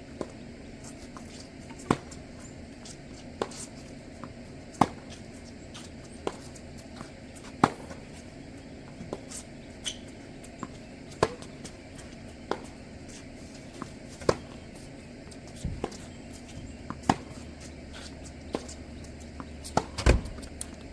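Tennis rally: sharp racket-on-ball strikes about every second and a half, alternating louder and fainter as the ball goes back and forth, with a few softer ball bounces between.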